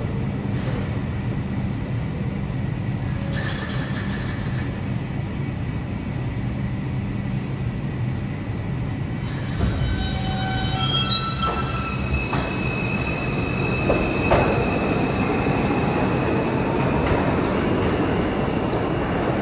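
A 2 train of R142 subway cars humming at the platform, then pulling out. A slowly rising whine comes from its traction motors as it speeds up, with a high steady wheel squeal and rail noise.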